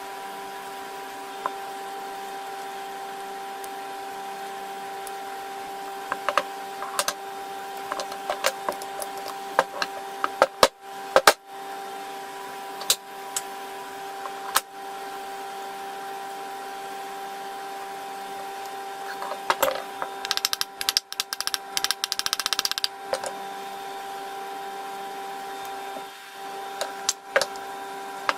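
A steady mechanical hum with scattered sharp clicks and knocks, and a quick rattle of rapid ticks about three quarters of the way through.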